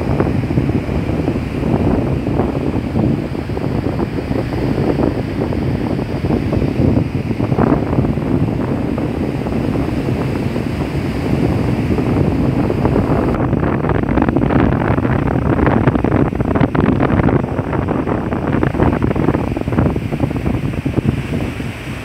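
Ocean surf breaking and washing up on a sandy beach, a continuous rushing noise, with wind buffeting the microphone.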